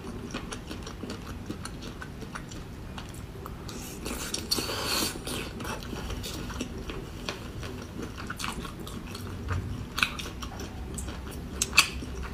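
Close-miked mouth chewing tender boiled cuttlefish: soft wet chewing with many small clicks and smacks, a longer wet smacking sound about four seconds in, and a few sharper clicks near the end.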